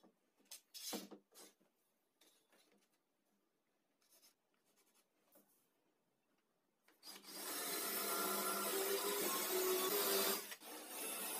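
A few light knocks as tools are handled, then a cordless drill/driver runs under load into the wooden table top from about seven seconds in. It lets up briefly about three seconds later, then runs on.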